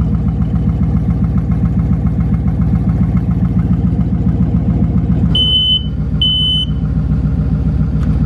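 2019 Ford Mustang GT's 5.0-litre V8, fitted with a new twin-turbo kit, idling steadily at its first startup, purring, with the charge piping not yet connected. About five and a half seconds in, a smoke alarm beeps twice over the engine.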